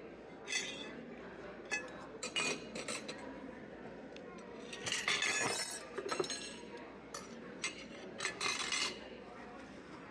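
Intermittent light clinks and knocks of objects being handled, with a few short scraping or rustling bursts.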